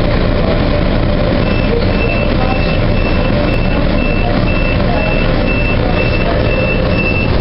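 Calgary C-Train light-rail car pulling away from a station, its steady running rumble heard from inside the car. From about a second and a half in, a high electronic beep repeats at an even pace over it.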